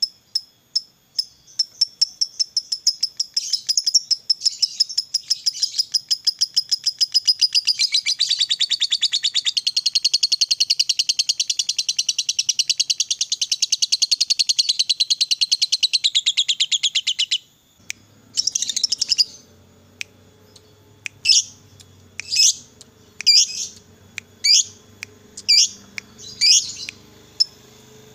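A lovebird's long rapid chattering trill, the prized 'ngekek panjang': a steady stream of fast high notes for about seventeen seconds that cuts off suddenly. After a short pause come single sharp chirps, about one a second.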